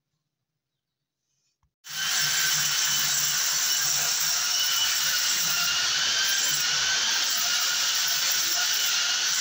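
Near silence, then about two seconds in a loud, steady mechanical whirring noise starts abruptly, with a faint wavering whine in it.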